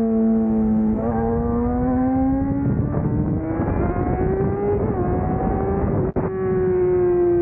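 Yamaha R6 inline-four engine running while the bike is ridden. The note jumps up about a second in and climbs steadily as it accelerates, dips briefly near five seconds, cuts out for an instant about six seconds in, then holds and slowly falls.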